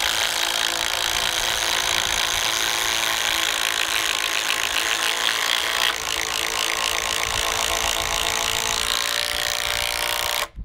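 Two cordless impact drivers hammering together as they sink 10-inch structural screws into cedar beams; about 6 seconds in one finishes and falls silent. The other, a 12-volt DeWalt, keeps hammering until it stops suddenly near the end.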